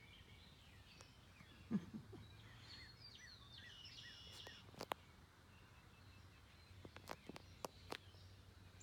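Quiet outdoor ambience: faint birds chirping in the distance, mostly in the first half, over a low steady hum, with a few soft clicks scattered through.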